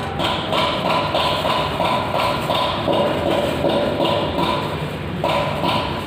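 Knife chopping breaded fried chicken fillet on a wooden cutting board, in steady knocks about three a second, with a short break near the end.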